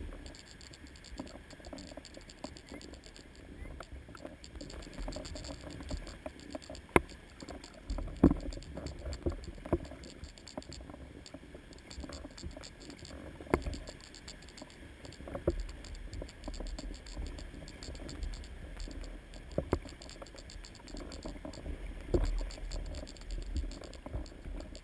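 Paddling in a Pakcanoe 170 canoe on the open sea: water washing and splashing around the paddle and hull in recurring swells, with a few sharp knocks, and wind rumbling on the microphone.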